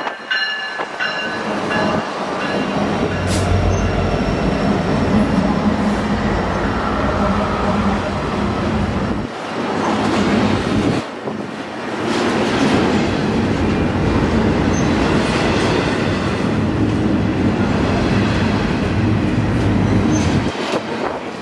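Union Pacific diesel freight locomotives passing close by, their engines running under power, then double-stack intermodal well cars rolling past with steady wheel rumble and clacking over the rail joints. The sound drops out briefly about halfway through.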